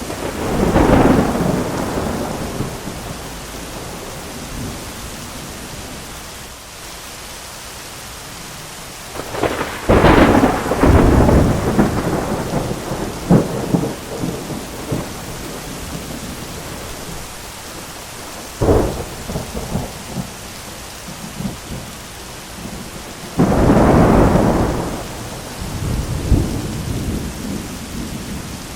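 Thunderstorm: steady rain with several peals of thunder, one rolling in right at the start, a louder one about ten seconds in with sharp cracks after it, a crack near nineteen seconds, and another long rumble near the end.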